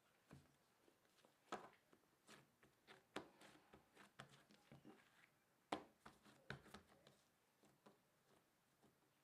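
Faint, scattered soft pats and taps of hands pressing and rolling bagel dough on a silicone baking mat.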